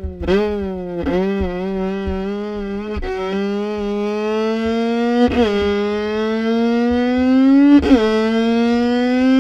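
Violin playing one long bowed note that slides slowly upward in pitch, dipping sharply and starting the rise again about every two seconds, as an imitation of a sound.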